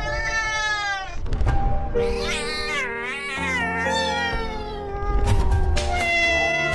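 Cat meowing three times over background music, the middle meow long and wavering.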